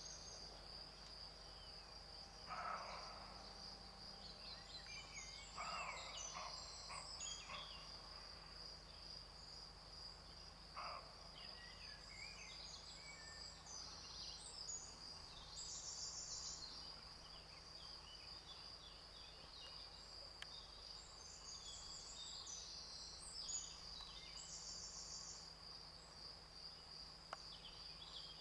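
Evening field ambience: an insect's steady high trill runs throughout, with songbirds calling in short repeated phrases above it. Three short rough noises stand out as the loudest sounds, about two, six and eleven seconds in.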